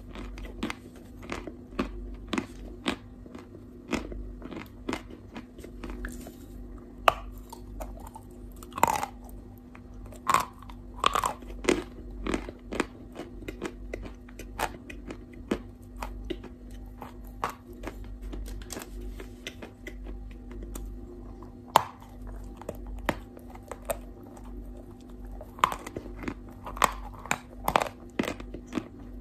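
Close-miked biting, crunching and chewing of chalk: sharp, irregular crunches, several a second at times, over a low steady hum.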